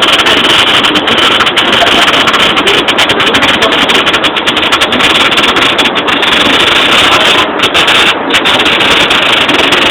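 MIG welder arc running continuously while laying a root pass on a T-joint, a loud steady crackling hiss, with two brief breaks in the hiss around seven and a half and eight seconds in.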